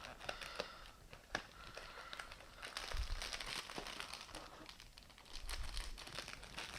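Biscuit packet being opened by hand: the wrapper crinkles and crackles with many small sharp clicks, and there are a couple of dull low bumps of handling about three and five and a half seconds in.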